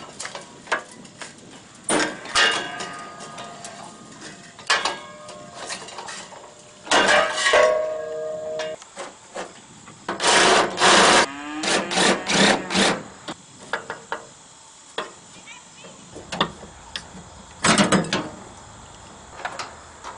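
Irregular metal clanks, knocks and scraping as the rusted muffler and sheet-metal hood panel of a 1969 Ford 4000 tractor are worked loose by hand. Some knocks ring on briefly, the longest about seven seconds in.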